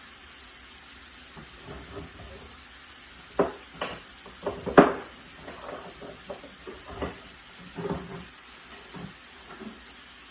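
Kitchen items clinking and knocking as someone rummages through a cupboard, with a cluster of sharp knocks between about three and a half and five seconds in.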